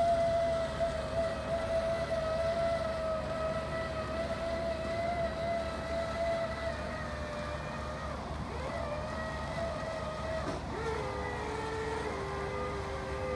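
Aquatic harvester running on open water: a steady engine drone with a high whining tone. The whine wavers about two-thirds of the way through and settles lower near the end as the machine turns.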